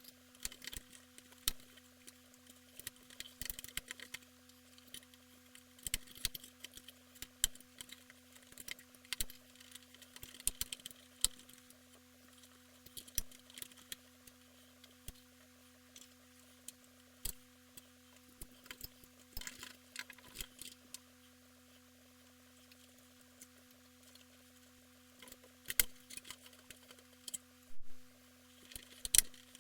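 Sped-up handling sounds from work inside a computer case: irregular clicks and taps of tools, screws and metal parts, over a steady low hum.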